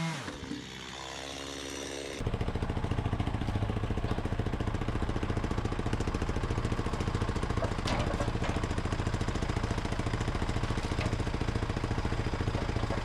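Engine running at a steady speed with a rapid, even pulse. It cuts in about two seconds in, as music fades out.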